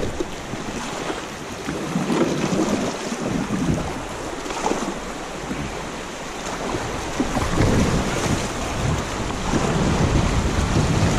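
Shallow, fast river water rushing over a rocky riffle around a kayak as it is paddled down, a continuous rush with wind on the microphone.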